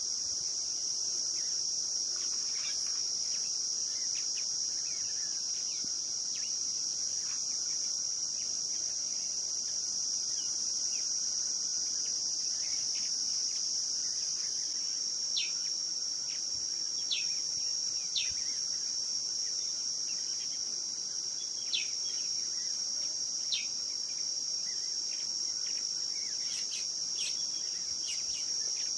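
Steady, high-pitched insect chorus droning without a break, with a few short, sharp bird chirps scattered through the second half.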